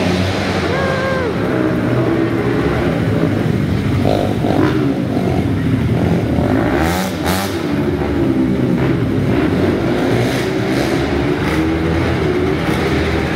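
Several small winged dirt-track race cars' engines running hard in a race, overlapping, their pitch rising and falling as they speed up down the straights and back off into the turns.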